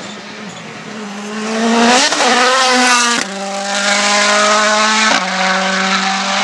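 Rally car engine at high revs as the car accelerates through and away: the engine note climbs in pitch for about two seconds. It then steps down and holds steady, with another step just after five seconds in, as in gear changes.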